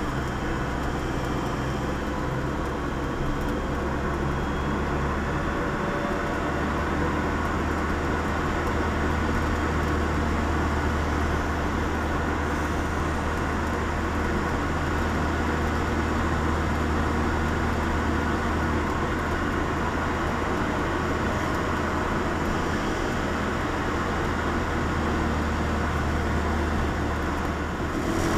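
Lotus Elise driving at road speed, heard from inside its cabin: a steady engine drone under road and wind noise. The engine note shifts about six seconds in, and near the end the level dips briefly before rising again.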